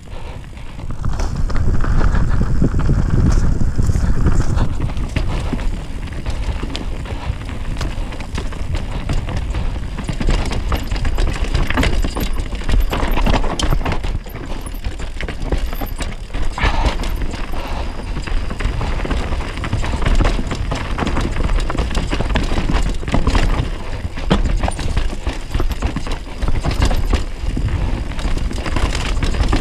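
Downhill mountain bike running fast down dirt singletrack: steady tyre rumble over the ground, with frequent irregular clatters and knocks from the bike over roots and rocks, and heavy wind rumble on the camera microphone.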